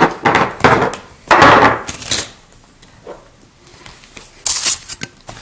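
Knocks and clatter of objects handled on a tabletop: a clear plastic nail-tip display wheel set down, with a few separate bumps and rustles.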